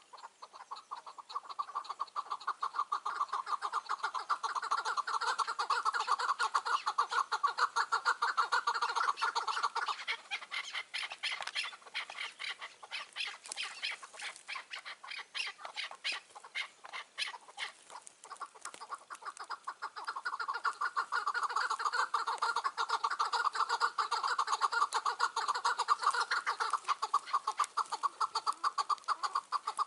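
Chukar partridges calling: long runs of rapidly repeated chattering notes. The calling comes in two loud bouts, one over the first ten seconds and one over the last ten. Between them come quieter, sharper, quicker notes.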